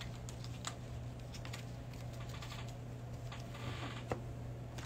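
Quiet room with a steady low electrical hum and a few faint soft clicks.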